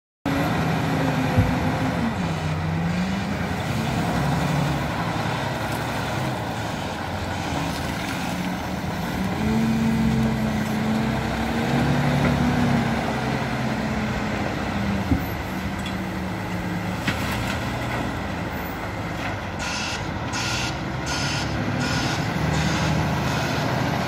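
Komatsu WA470 wheel loader's diesel engine running under load, its pitch rising and falling as it lifts its bucket to load a dump truck. A few sharp knocks, and a short run of clatters near the end.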